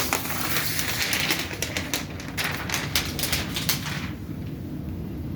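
A rapid, uneven run of sharp clicks over a rustling haze, stopping about four seconds in, with a steady low hum underneath.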